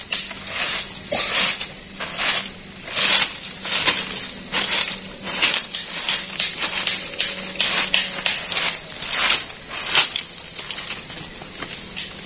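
Insects in the forest keep up a steady, high-pitched drone. Over it come irregular rustles and short clattering noises, several a second at times.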